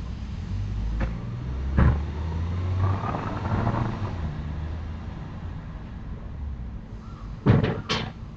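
Low rumble of a passing vehicle with a faint rising tone, a couple of short clicks early in it, then a quick cluster of two or three sharp knocks near the end, the loudest sound.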